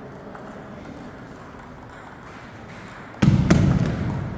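Table tennis ball clicking against paddles and bouncing on the table as a rally starts about three seconds in, with a dull thump as it begins. Before that, only faint scattered ball clicks from other tables in a large hall.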